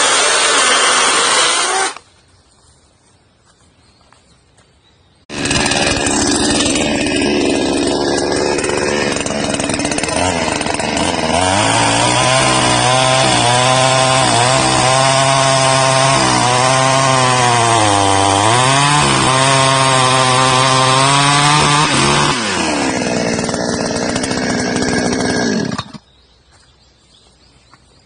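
Chainsaw cutting through wood, in two stretches separated by a short quieter pause. In the longer cut the saw's pitch holds high, sags for a moment under load, then falls away as the cut finishes.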